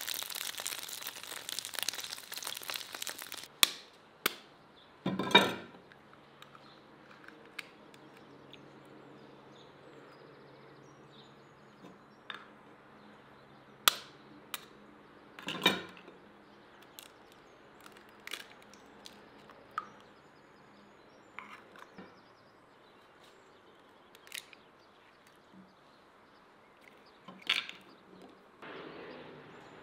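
Kitchen work sounds: a dense crackling hiss that cuts off about three and a half seconds in, then a dozen or so scattered sharp clicks and knocks of utensils, the loudest about five and fifteen seconds in.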